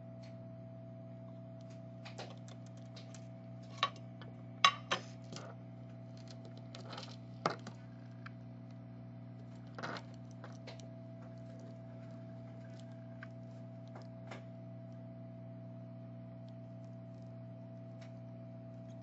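Scattered light clicks and taps of small tools on a phone circuit board during desoldering, sharpest a little under five seconds in and dying away about halfway through, over a steady electrical hum.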